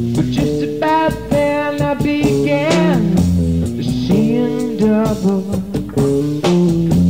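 Live blues-rock band playing: electric guitar and bass with drums, a lead line bending and sliding in pitch over the steady bass.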